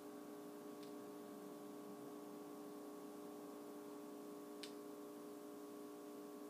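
Quiet, steady electrical hum with two faint ticks, one about a second in and one near the five-second mark.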